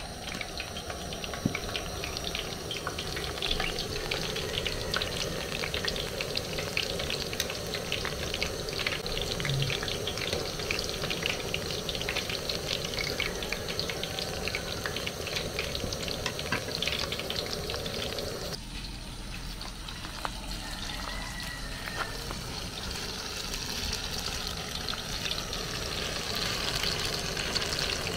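Plantain puff puff dough balls deep-frying in hot oil in a metal frying pan: a steady sizzle full of small pops and crackles. The sizzle changes character about two-thirds of the way through.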